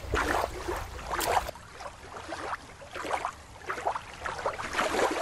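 Shallow water washing against rocks at the shoreline. About a second and a half in it gives way abruptly to open-sea water sounds, an irregular splashing wash of waves that swells and fades.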